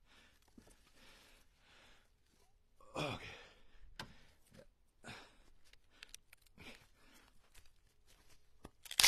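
A man's heavy exhales and sighs as he bends and lifts split firewood, several times over, with a few sharp knocks of wood on wood; the loudest knock comes near the end.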